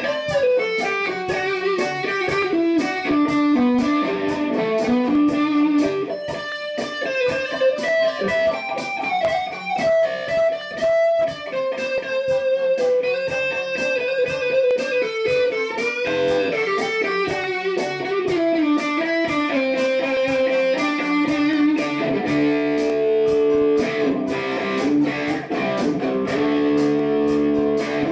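Electric guitar playing a melodic lead line over a looped rhythm part with a steady beat, moving into fuller sustained chords near the end.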